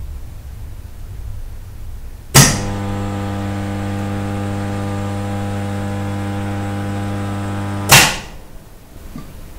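Electric kiln switching on with a sharp click, its elements giving a steady buzzing hum for about five and a half seconds, then switching off with another click. A low rumble lies underneath before it starts.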